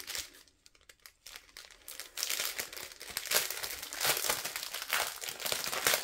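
Small plastic zip-lock bags crinkling and rustling as they are handled. The first second or two is quiet, then the dense crackling starts and keeps going.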